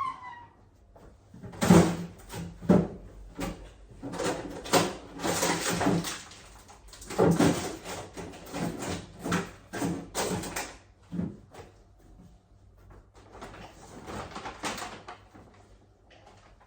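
Groceries being packed into a freezer: plastic packaging rustling, with many quick knocks of packages and freezer drawers or shelves being moved. The knocks are dense for about ten seconds, then a softer rustle comes near the end.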